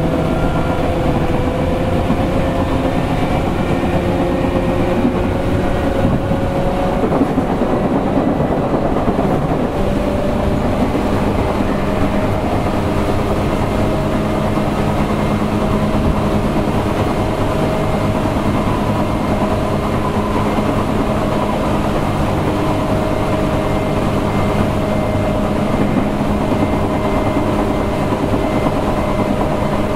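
Tokyu 8500-series electric train running, heard from inside a motor car: a steady rumble of wheels and traction motors with whining tones. The whine rises slightly over the first several seconds, and about ten seconds in it changes to a new steady set of tones.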